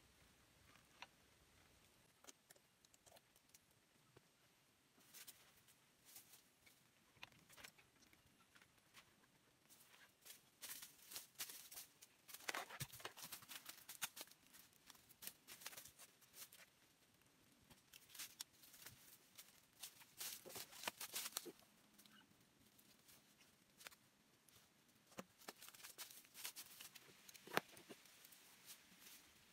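Faint rustling and crackling of a sack and bundles of dry, hairy cu li (golden chicken fern) rhizomes being handled and loaded onto a motorbike. It comes in bursts with quiet gaps, and there is one sharp click near the end.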